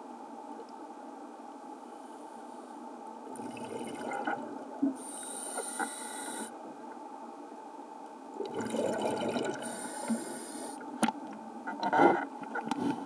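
Scuba diver breathing through a regulator underwater: two breaths a few seconds apart, each a drawn hiss followed by a rush of exhaust bubbles, over a steady underwater background noise. Scattered clicks and a sharp knock come near the end.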